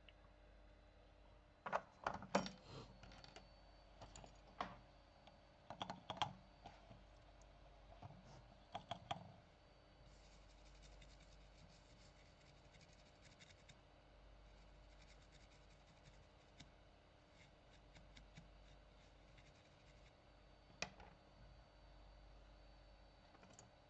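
Light clicks and taps of small metal tools such as tweezers being handled on a repair bench, in irregular clusters during the first ten seconds and once more near the end, with a faint scratchy rustle in between.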